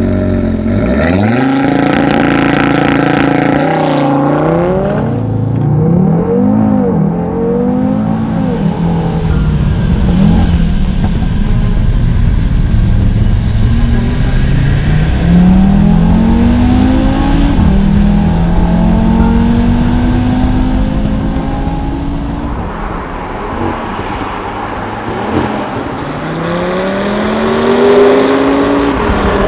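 ABT-tuned Audi TT RS-R's turbocharged 2.5-litre five-cylinder engine launching hard from a standstill on launch control, revs climbing and dropping through a quick run of upshifts in the first seconds. Later come further full-throttle pulls, the revs rising steadily before each gear change.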